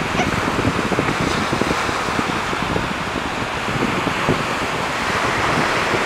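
Wind buffeting the microphone over a steady wash of surf on the beach.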